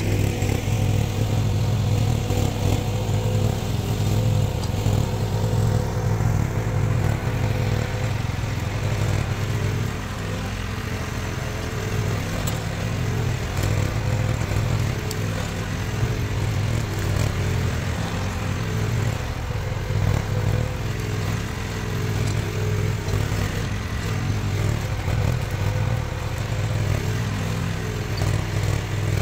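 Diggit EM15 mini excavator's engine running steadily.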